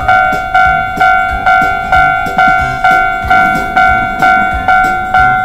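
Japanese railroad crossing warning bell sound effect ringing steadily, an electronic two-tone ding repeating about twice a second.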